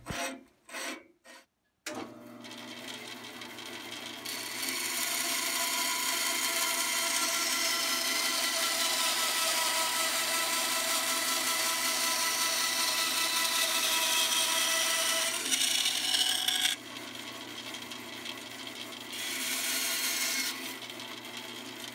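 A few short strokes of a bandsaw blade rubbing against a carborundum stone, deburring the freshly sharpened teeth. Then the bandsaw motor starts running and the blade cuts through a wooden block in one long cut of about twelve seconds. The saw runs on freely, and a second short cut comes near the end.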